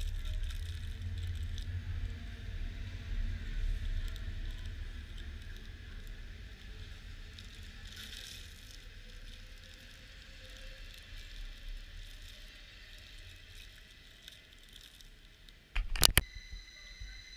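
SBB regional passenger train rolling past on the track: a low rumble with rail noise that fades away as the last coaches go by. Near the end, a couple of sharp knocks.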